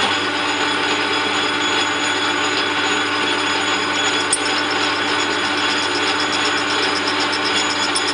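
Geared-head metal lathe starting up and running steadily at about 460 RPM, a constant hum and whine from the headstock gears and motor. From about four seconds in, a fast even ticking joins it as the facing tool begins a light cut on the end of the PVC barrel, cutting only part of each turn.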